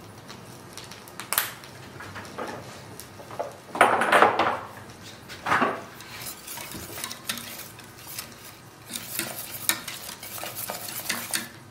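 Wire whisk stirring and scraping thick polenta in a stainless steel pot, in uneven strokes, loudest about four seconds in.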